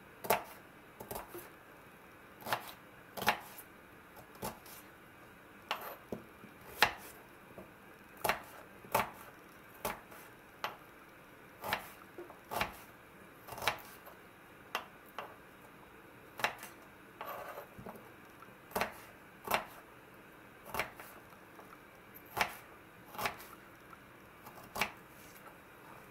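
Kitchen knife chopping a peeled onion on a wooden cutting board: sharp knocks of the blade striking the board, about one a second and unevenly spaced.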